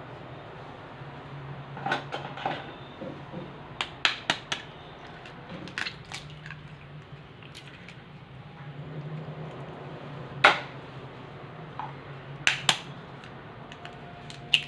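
Eggs being cracked against a mixing bowl and added to cake batter: a series of sharp knocks and clinks of shell and bowl, the loudest about ten and a half seconds in.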